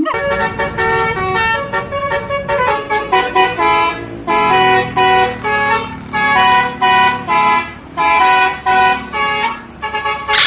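Indonesian 'telolet' bus horn, a multi-tone Basuri air horn, tooting a melody in short phrases of stepped notes with brief gaps between them.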